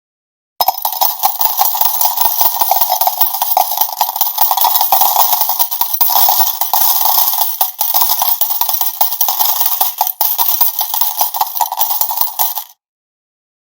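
A jackpot cascade of coins pouring out and clattering continuously, starting about half a second in and stopping abruptly about a second before the end.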